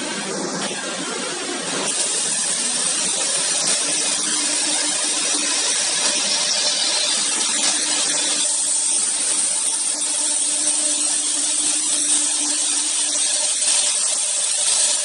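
Twin-spindle CNC router (ACCTEK AKM1325-2) running both spindles and routing into a wood board: a steady, hissing high machine whine that gets louder about two seconds in and then holds.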